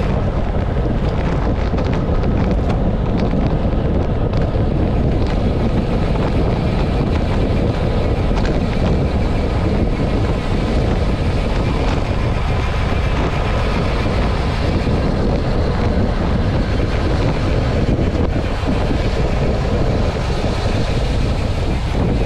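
Steady wind rushing over a bike-mounted camera's microphone as a road bicycle is ridden at around 35 to 55 km/h.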